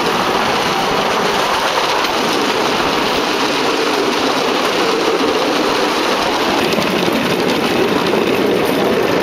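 Bamboo train (norry) running along the rails: its small 6-horsepower gasoline engine running steadily under the clatter of the steel wheels on the track, a loud, even din.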